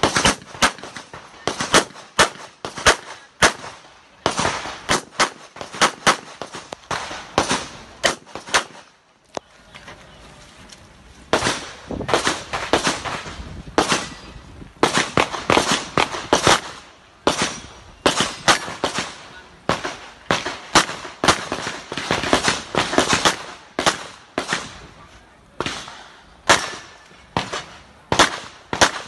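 Glock 17 Gen 4 9 mm pistol firing rapid strings of shots, many in quick pairs, with a break of about two seconds about a third of the way through before the firing resumes.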